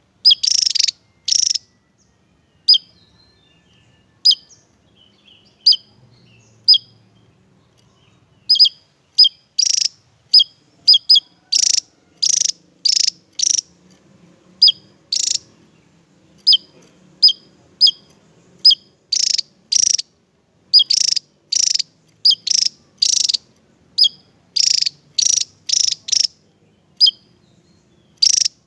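Javan tesia singing: short, sharp, high chirps, a few spaced-out notes at first, then from about eight seconds in coming thick and fast in quick runs.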